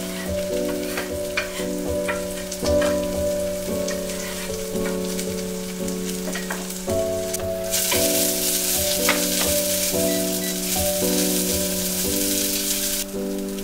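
Food frying in a stainless saucepan, with chopsticks stirring and clicking against the pot; the sizzle gets much louder about eight seconds in. Background music with slow, sustained chords plays throughout.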